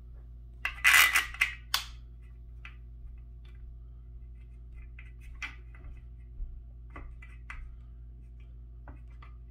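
Small metal clinks and clatter from an Allen key and screw working against the desk's steel leg frame: a loud rattling burst about a second in, then scattered light ticks as the key is turned.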